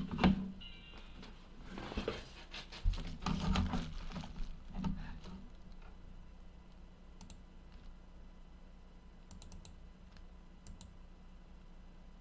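Rustling and handling noise with dull low thumps as a person sits down in a leather office chair at a desk. From about seven seconds in come sparse light clicks at the computer, in small groups.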